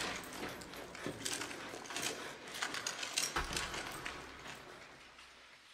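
Footsteps crunching on the loose gravel and rock of a cave floor: an uneven run of small crunches and clicks that grows fainter toward the end.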